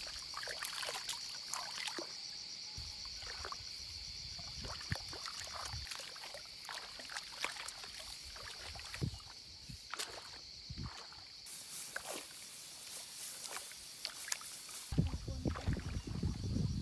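Muddy paddy water sloshing and splashing in short irregular bursts as rice seedlings are pulled up by hand, over a steady high-pitched insect drone. A louder low rumble comes in near the end.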